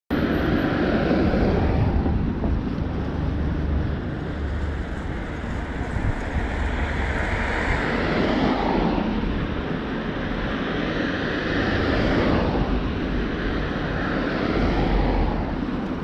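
Steady wind rush and road rumble on a camera moving along a wet road, with a few swells as oncoming cars pass.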